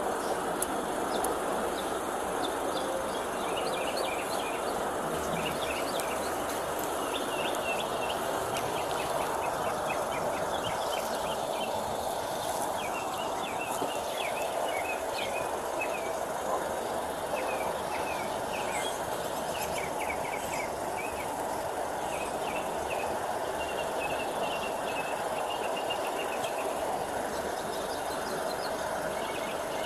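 Steady rushing background noise with small birds chirping again and again over it.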